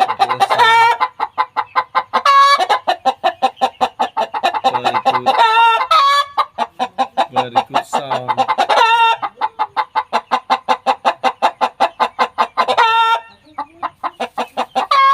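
Khmer hen cackling: fast runs of clucks, several a second, each ending in a long, higher drawn-out call, repeated about every three to four seconds. This is the cackle of a hen about to lay an egg.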